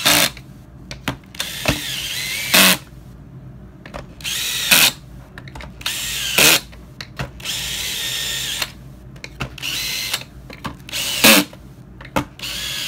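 Cordless brushless drill/driver driving screws into a hoverboard's plastic shell, run in a series of short trigger bursts with a few longer runs, its motor whining with each one. Small clicks come between the runs.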